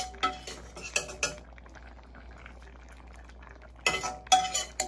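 Metal spoon clinking and knocking against a pan of fish stew while it is stirred and scooped: a few knocks at the start, a quiet stretch, then a quick cluster near the end.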